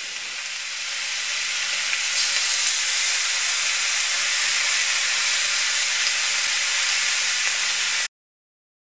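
Marinated beef short ribs sizzling steadily on a hot ridged grill pan, with a faint low hum underneath. The sizzle stops abruptly about a second before the end.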